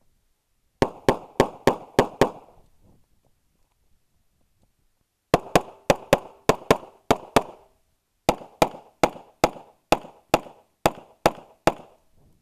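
Rapid fire from a .40-calibre pistol: three strings of shots at about three a second, the first of about six shots, then two longer strings of about nine and ten, with pauses of a few seconds between.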